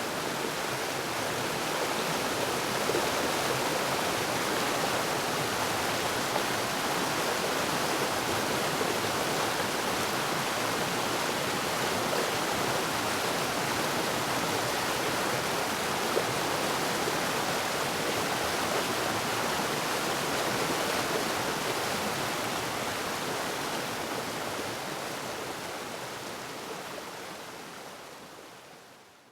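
Waterfall: a steady rush of falling water, fading out over the last few seconds.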